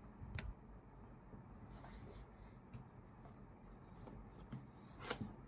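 Faint rubbing and scraping of a cardboard box and its packaging being handled and opened, with a short sharp scrape about half a second in and a louder one near the end.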